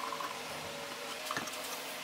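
Quiet workshop room tone with a faint steady hum; light scratching of a pencil on plywood near the start, and a short knock of handling about one and a half seconds in.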